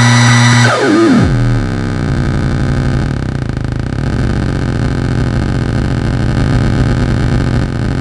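Homemade 555-timer and 4093-chip tone generator: a buzzy tone that drops steeply in pitch about a second in, then settles into a low, rough buzz.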